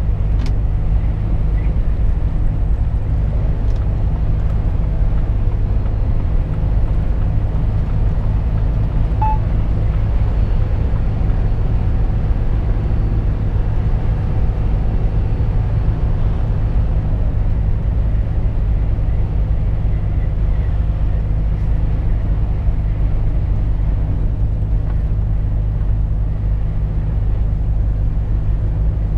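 Volvo FH 460 truck cruising, heard from inside the cab: the steady low drone of its six-cylinder diesel engine under road noise, unchanging throughout.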